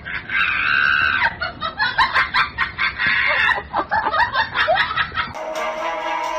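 High-pitched human laughter in quick, choppy bursts, several a second. About five seconds in it cuts off sharply to steady background music.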